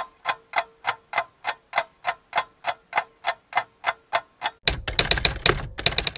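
Intro sound effect: steady mechanical ticking, about three and a half ticks a second, over a faint held tone. About two-thirds of the way through it breaks into a louder, rapid clatter of clicks that cuts off suddenly.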